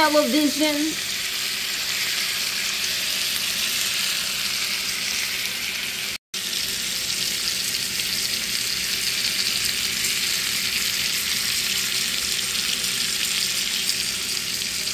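Steaks sizzling as they fry in hot fat in a pan with garlic cloves and rosemary: a steady, even hiss. It cuts out for an instant about six seconds in.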